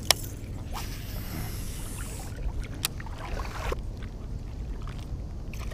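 Baitcasting reel in use while fishing a topwater lure. A sharp click right at the start, a noisy whir lasting about a second and a half, then another sharp click near the middle, with quieter reeling after it. A low steady rumble runs underneath.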